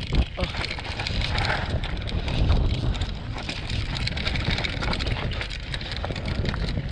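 Mountain bike riding down a rough, rocky dirt trail: tyres crunching over loose stones, the bike clattering and rattling over bumps with many small knocks, and wind buffeting the microphone.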